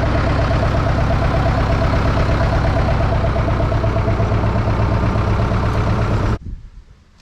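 Zetor 6711 tractor's four-cylinder diesel engine running steadily, cutting off abruptly about six seconds in.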